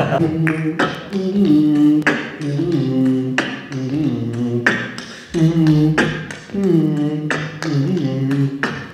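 A man beatboxing: a hummed, wavering vocal line over a steady beat of sharp mouth clicks.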